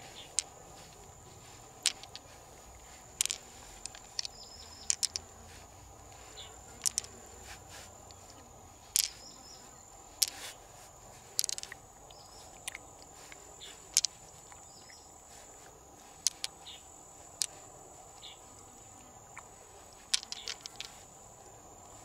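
Pearls clicking against one another as they are picked out of an opened freshwater mussel and dropped into a handful of pearls: about two dozen sharp clicks at irregular intervals. A steady high-pitched whine runs underneath.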